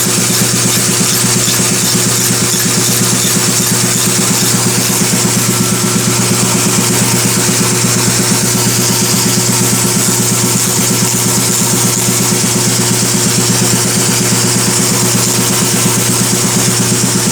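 A machine running steadily: an unchanging engine-like drone with a constant low hum and a hiss over it.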